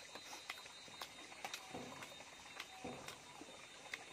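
Close mukbang eating sounds: faint wet smacks and clicks of a mouth chewing spicy beef curry eaten by hand, scattered irregularly, with two slightly longer sounds about two and three seconds in.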